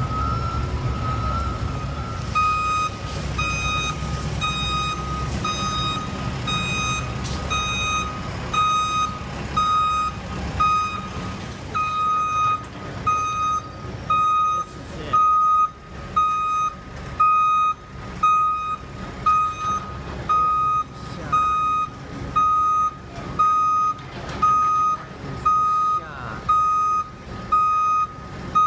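Back-up alarm of a construction vehicle beeping steadily, a bit more than once a second, starting a couple of seconds in, over a low engine rumble that eases off partway through.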